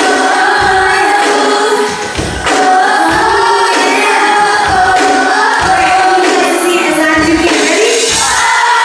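Live amplified song: a singer holding long, sliding notes over a band with a steady drum beat.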